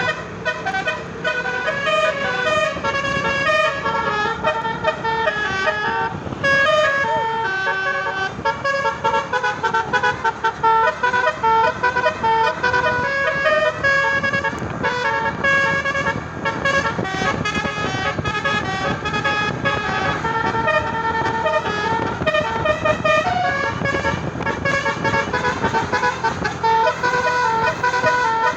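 Tour bus telolet Basuri musical air horn playing a fast melody of many short stepping notes without a break, over bus engine and road noise.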